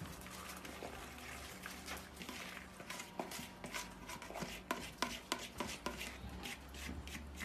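Shredded cabbage being scraped by hand off a plastic plate into a pot of boiling broth: quiet, irregular light taps and scrapes over a low steady hum.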